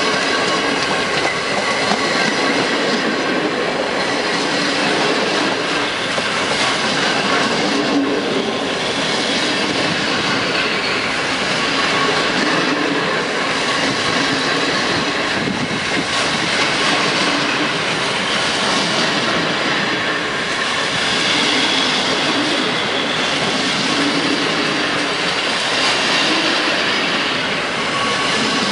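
Container flat wagons of a freight train rolling past close by: a loud, steady noise of steel wheels on rail with clattering over the rail joints and a faint steady whine.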